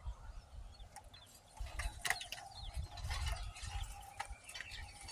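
Faint clicks and knocks of tools being handled over a low, uneven rumble, with small birds chirping briefly in the background.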